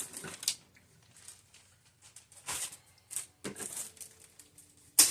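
Plastic zip-lock bags crinkling and rustling in several short bursts while being rummaged through, with a sharper, louder crackle near the end.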